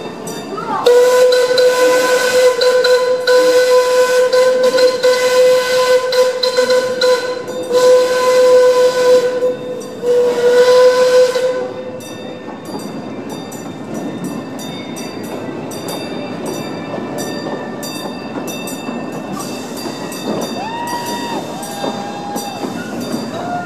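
A coal-fired narrow-gauge steam locomotive blows its steam whistle on one steady note: a long blast and then two shorter ones, stopping about twelve seconds in. Under it and after it a crossing bell rings with quick even strokes, over the steady noise of the approaching train.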